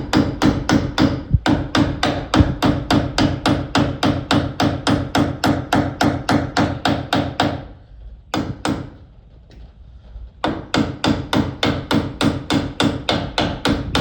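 Hammer driving nails through a nail-on PVC electrical box into a wooden stud, rapid even blows about four a second. The blows stop about eight seconds in, two more follow, then the hammering picks up again after a short pause.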